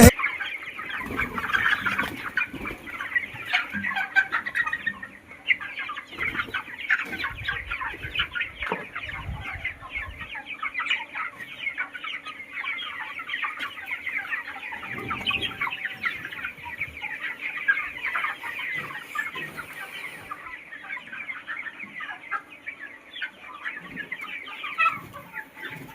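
A flock of desi chickens clucking and calling, many short calls overlapping without a break.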